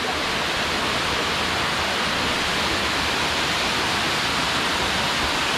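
Waterfall cascading down several rock ledges into a pool: a steady rush of falling water with an even hiss that holds at the same level throughout.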